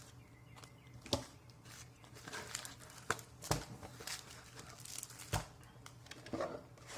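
Cardboard and plastic packaging of a trading-card fat pack being handled as its contents are taken out: rustling and crinkling, with a few light knocks.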